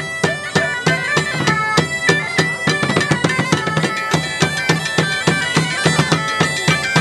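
Two bagpipes playing a lively melody over their steady drones, accompanied by a large bass drum and a smaller side drum beating a quick, even rhythm.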